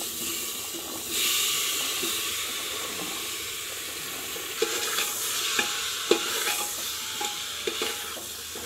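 Boiled chickpeas and potatoes sizzling as they go into hot masala in a pressure cooker. From about halfway a steel spoon stirs them, clinking and scraping against the pot.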